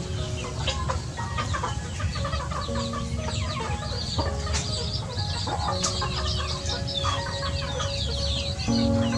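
Young chickens clucking and giving many short, high, falling chirps while they feed, with background music of held notes underneath.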